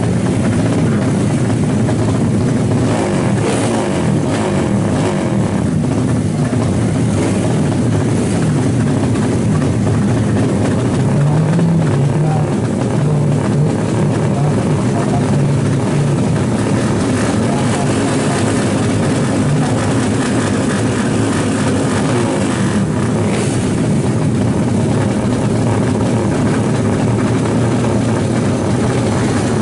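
Drag-race motorcycle engines running and revving, their pitch rising and falling, over a steady loud din.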